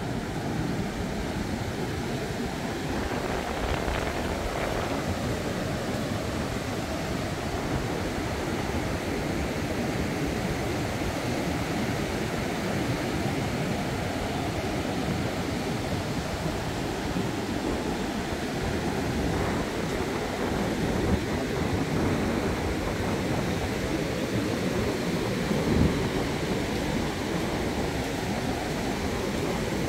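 Heavy surf from a rough sea breaking and washing up the beach: a big, steady noise of waves, swelling slightly a few times.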